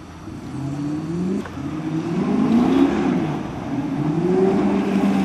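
Modified off-road 4x4's engine revving up and down repeatedly under load as it works over rocky ground, its pitch rising and falling several times and growing louder in the second half.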